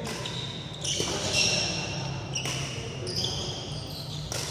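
Court shoes squeaking on a badminton court floor: a string of short, high-pitched squeaks, with a few sharp knocks among them.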